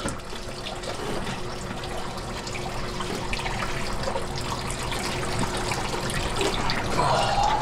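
Engine coolant pouring and trickling out of the LS V8 as its water pump is pulled off, splashing into a drain pan in a steady stream. A few light clicks and knocks from the pump being handled.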